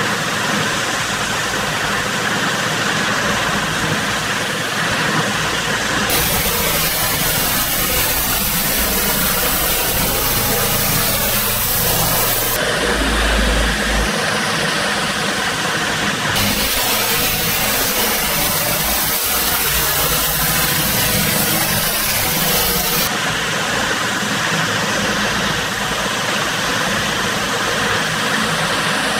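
Engine-driven pressure washer running, with the loud hiss of its high-pressure water jet spraying a patio. The tone of the noise shifts abruptly every few seconds.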